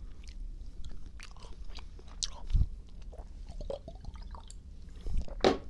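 Close-up chewing of soft magnesium gummy supplements, with scattered small mouth clicks and a single low thump about two and a half seconds in.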